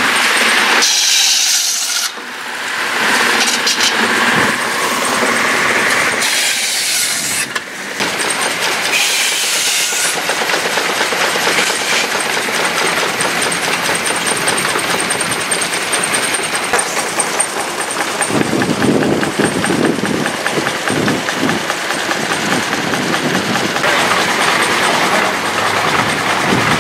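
Machinery running with a fast, even clatter. The sound changes abruptly a few times, as separate clips are joined.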